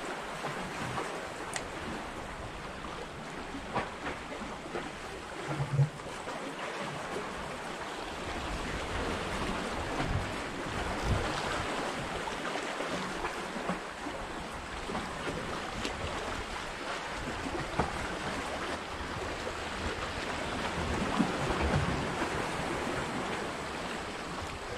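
Sea waves washing and slapping among the concrete tetrapod blocks of a breakwater, swelling and easing, with wind on the microphone and a few faint clicks.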